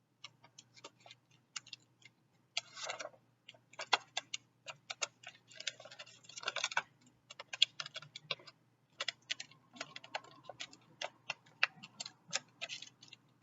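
Irregular small clicks, taps and brief rustles of pinwheel parts being handled and pressed together on a tabletop, as the fastener piece is pushed through the back of the pinwheel.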